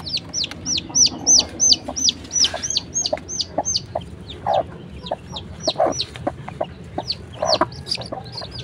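Newly hatched village chicks peeping shrilly and rapidly, each peep sliding down in pitch, about four a second with a short lull partway. A few low hen clucks come in about halfway through and again near the end.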